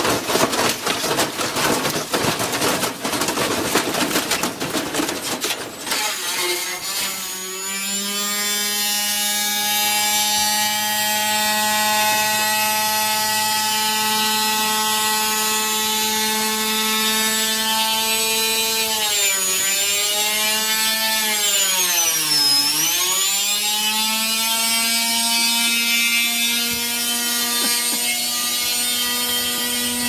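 Front-loading washing machine tearing itself apart in an out-of-balance spin: its drum bangs and rattles violently against the burst-open casing. About seven seconds in the clatter gives way to a steady whine from the freely spinning drum and motor. The whine's pitch sags twice around twenty seconds in and then recovers.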